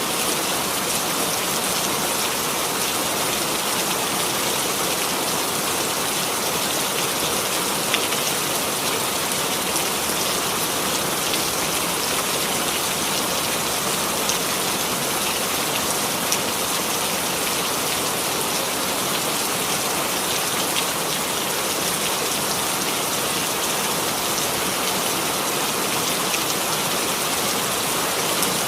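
Steady rain falling and pattering on a surface, an even hiss with a few single drops ticking out now and then.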